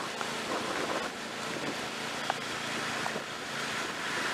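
Snapper rear-engine riding mower's engine running steadily at a distance on choke, under a hiss of wind on the microphone, with one sharp tick about halfway through.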